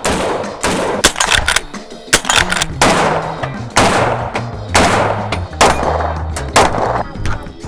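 Gunshots from rifles and a pistol, about one a second, each with a ringing tail, over background music.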